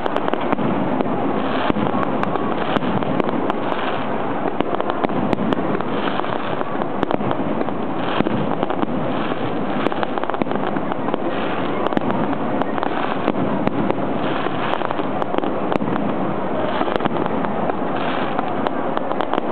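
Aerial firework shells bursting one after another, a dense, unbroken crackle of many overlapping reports at a steady level.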